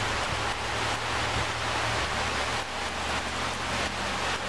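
Heavy rain pouring down in a storm: a steady, even hiss of downpour.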